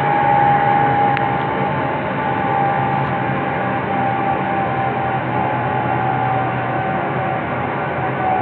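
Zipline trolley running along the steel cable: a steady whine over a rushing noise, sinking slightly in pitch.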